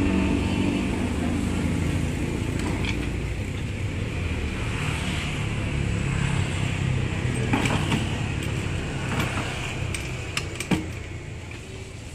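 Motorbikes passing along the street close by: one engine fading away in the first second, another coming up and passing in the middle. A couple of sharp clicks come about ten seconds in.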